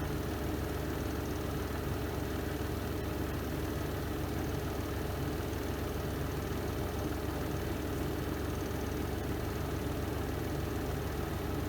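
Spin drum of a Renova semi-automatic twin-tub washing machine spinning at a steady speed, an even motor hum with a low drone.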